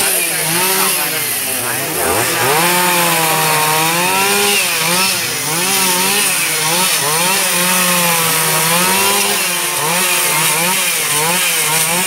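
Two-stroke chainsaw running at the top of a coconut palm, its engine pitch rising and falling over and over as it revs and works into the trunk.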